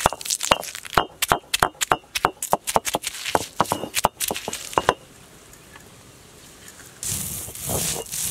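Stone roller crushing peeled garlic cloves on an ammi grinding stone: a quick, irregular run of sharp cracks and clicks as the cloves split. Then a quiet pause, and near the end a denser grinding crunch on the stone.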